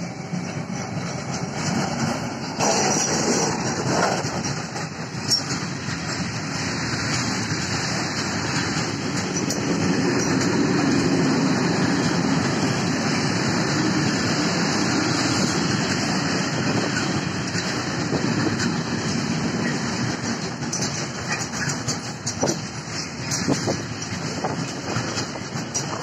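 A freight train passing close by: the Siemens Vectron electric locomotive goes past at the start, then a long line of Eas-z open freight wagons rolls by with a steady loud rumble and rattle of wheels on rail, broken by occasional sharp knocks.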